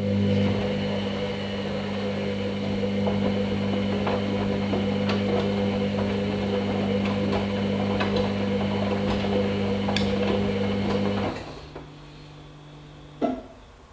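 Hoover Nextra HNL662 washing machine running with a steady low electric hum and faint scattered clicks, which cuts off suddenly about 11 seconds in. A single sharp click comes near the end.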